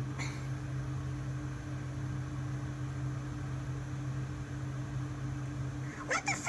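Steady low electrical hum with a faint even hiss. In the last moment, high squeaky voice-like sounds begin.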